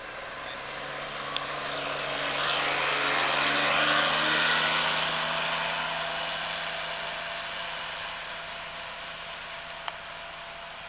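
Veteran-style motor carriage's engine running steadily as it drives past with a rushing road noise, getting louder to a peak about four seconds in, then fading as it moves away.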